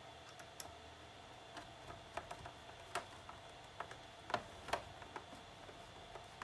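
Scattered light clicks and taps, irregularly spaced: a hand screwdriver and small screws against the plastic back cover of a small Samsung LCD TV as it is screwed back together.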